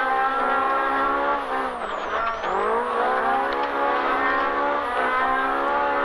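Polaris RZR Pro R's four-cylinder engine running at high revs under racing load, heard from inside the car. The revs drop briefly about two seconds in and climb straight back, with a smaller dip about five seconds in.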